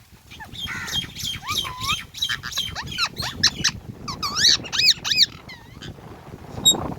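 Indian ringneck (rose-ringed) parakeet chirping: a fast run of high, squeaky chirps that slide up and down in pitch. They start about half a second in and die away near the end.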